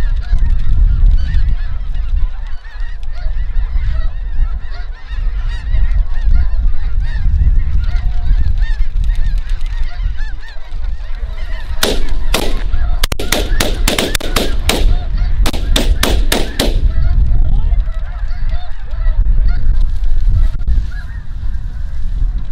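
A large flock of snow geese calling overhead, a dense, unbroken chorus of overlapping honks. About halfway through, a quick run of short, sharp noisy bursts lasts for several seconds.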